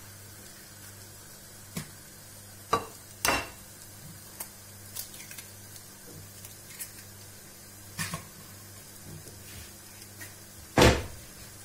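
Kitchen handling sounds: an egg cracked against a ceramic plate and emptied onto it, with scattered light clicks of shell and utensils and a sharper knock near the end. A faint steady hum runs underneath.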